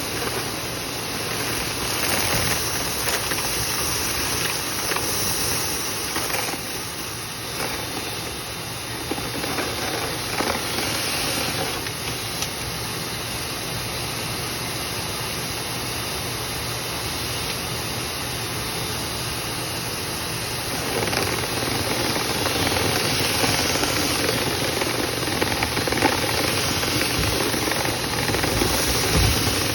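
Dryer vent cleaning equipment running steadily, with air rushing through the duct and debris clicking inside it. It gets louder about two-thirds of the way through.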